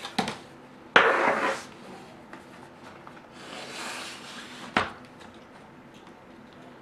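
Plastic laptop parts being handled and set down. There are a few light clicks, a louder clatter about a second in, and one sharp click near five seconds.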